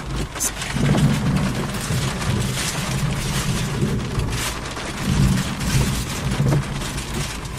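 Thunder rumbling from nearby lightning, in low swells that rise about a second in and again around five seconds, over a steady hiss.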